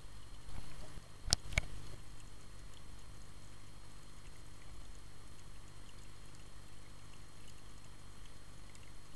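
Muffled underwater ambience picked up by a camera inside a waterproof housing: a low, steady rumble with a faint steady high whine. Two sharp clicks come close together about a second and a half in.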